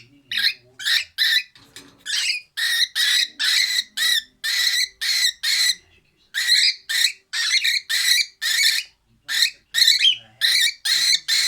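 Cockatiel giving short, harsh, hissing screeches over and over, about two a second. This is the angry 'dinosaur' noise the bird makes when provoked.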